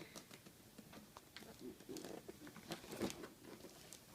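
Faint rustling with scattered light clicks and taps: a wrapped present being handled and picked at.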